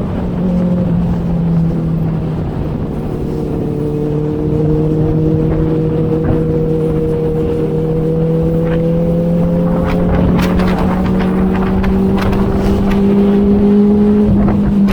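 Inline-four sport motorcycle engine running at steady revs while riding, with wind noise on the bike-mounted microphone. Its pitch eases slightly about a second in and climbs gently over the last few seconds. A few brief crackles come in the second half.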